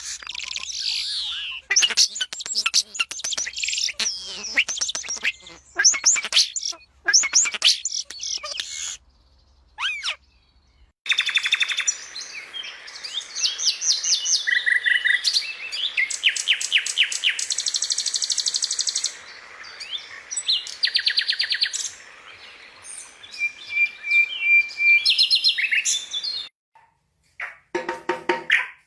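Songbirds singing: fast trills, rapidly repeated notes and rising and falling whistled phrases, broken by short silent gaps.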